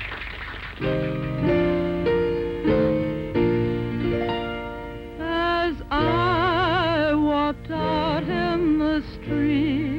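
The last of the applause, then an accompaniment of held chords starts just under a second in; from about five seconds in a woman sings over it in a trained, operatic style with a wide vibrato.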